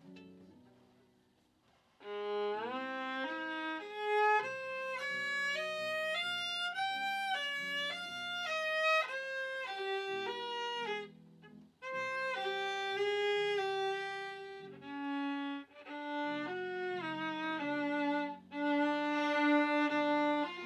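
Viola bowed through a passage of separate notes, mostly in its upper range, starting about two seconds in, with a short pause near the middle and brief breaks after it.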